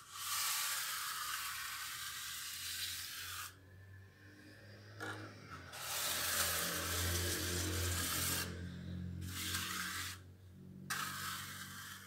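Hand float scraping and rubbing over wet cement plaster on a concrete stair, in several long strokes with short pauses between.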